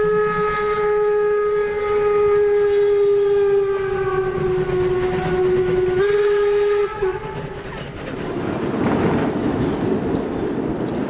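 A long train whistle blast on one steady pitch, sagging slightly and stepping up briefly about six seconds in, cutting off after about seven seconds. After it comes a steady rushing noise.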